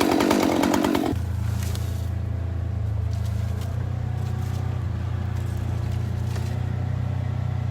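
A chainsaw cutting stops abruptly about a second in. A steady low engine drone follows for the rest of the time, with a few faint ticks over it.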